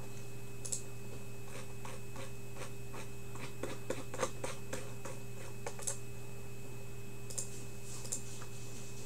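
Scattered light clicks and taps, bunched together a couple of seconds in and tailing off toward the end, over a steady electrical hum with a thin high whine.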